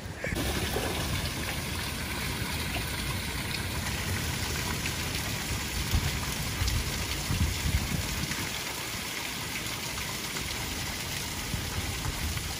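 Small waterfall steadily splashing onto rock and a shallow pool, with a few low thumps.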